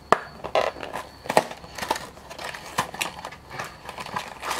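Small cardboard toy box being torn open by hand: an irregular run of sharp clicks and crackles as the end flap is pulled and torn.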